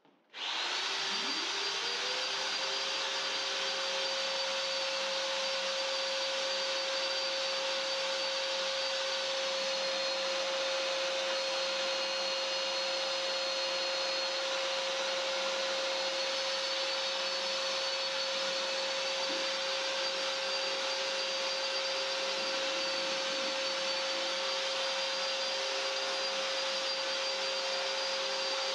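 Electric drill with a paddle mixer starting up, its pitch rising over the first two seconds, then running at a steady speed with a high whine as it stirs self-levelling floor compound in a plastic bucket.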